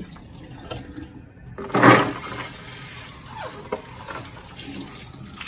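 Water running and splashing in a kitchen sink as shell-on peanuts are washed, with a louder splash about two seconds in.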